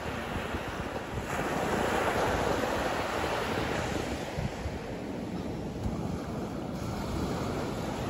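Small ocean waves breaking and washing up a sandy beach, with wind buffeting the microphone. The wash swells about a second in and fades by about four seconds in.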